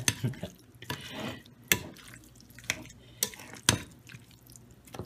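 Metal tongs stirring a wet mix of shredded chicken, cheese and seasoning in a glass bowl: a squishy, sloppy stirring sound like mac and cheese being stirred, broken by several sharp clicks of the tongs against the glass.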